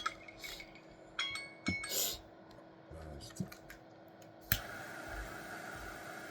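Small glass pieces clinking and tapping with short ringing tones, then a brief breathy puff. About four and a half seconds in a sharp click is followed by a steady hiss that keeps going.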